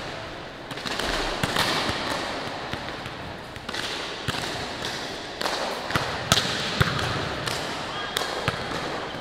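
Volleyballs being struck and dug: a series of irregular sharp slaps and thuds of the ball on hands and forearms and bouncing on a hard sports-hall floor, the sharpest coming in the second half. Voices call faintly behind them.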